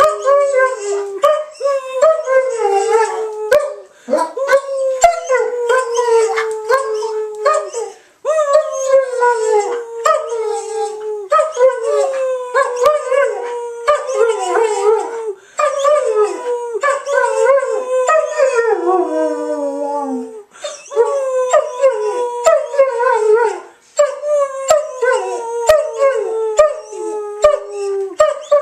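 German Shepherd howling loudly in a long run of wavering howls that fall in pitch, pausing briefly every four to six seconds before starting again.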